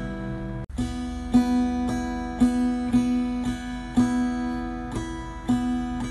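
Instrumental background music of evenly spaced plucked notes, with a brief cut-out under a second in.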